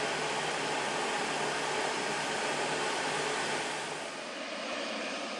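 Jet engines of a Boeing 777 freighter at taxi power as it rolls onto the runway: a steady rushing hiss with a faint whine. About four seconds in, the low rumble drops away and the sound gets slightly quieter.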